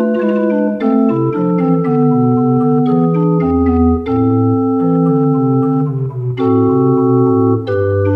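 Organ music playing: held chords that change every second or so over a stepping bass line.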